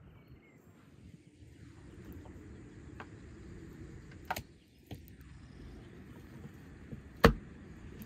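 Raw lamb pieces being handled and laid out on a wooden cutting board, with a few sharp knocks and one loud thump near the end, over a low steady rumble.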